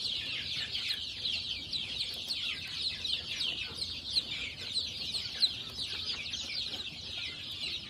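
A brood of baby chicks peeping without pause: many high, short, downward-sliding cheeps overlapping one another.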